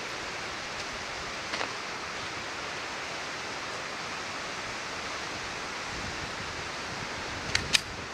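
Steady wind noise rushing on the microphone. Near the end come two sharp clicks in quick succession.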